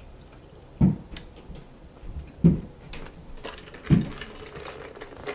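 Close-miked eating and drinking mouth sounds: three low swallows about a second and a half apart, with faint wet clicks between them.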